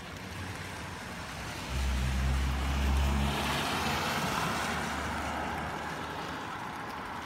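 A car driving past on a wet road: a low engine hum comes in suddenly just under two seconds in, then the hiss of tyres on the wet surface swells and fades away, over a steady background hiss.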